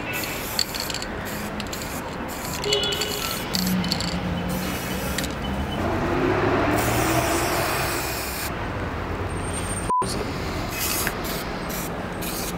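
Aerosol spray-paint can hissing in short bursts as paint is sprayed through a stencil onto a wall, over the noise of street traffic.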